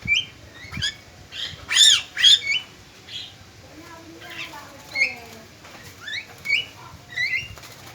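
Javan myna calling: a string of short, sharp squawks and whistled notes that slide up and down in pitch, coming at irregular intervals. The loudest pair comes about two seconds in.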